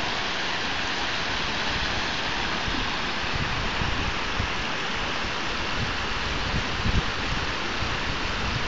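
River water rushing over rocks and through small rapids: a steady, even rush, with some irregular low rumbling in the middle.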